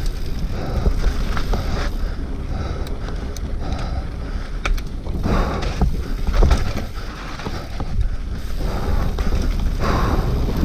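Mountain bike running fast down a rocky dirt singletrack. Wind buffets the on-board camera's microphone over the rumble of the tyres, and short rattles come from the bike over bumps.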